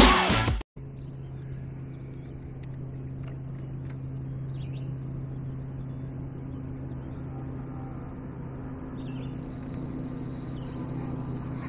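Electronic intro music cuts off abruptly under a second in. Then a steady low hum carries on, with faint bird chirps over it, and insects start a steady high buzz near the end.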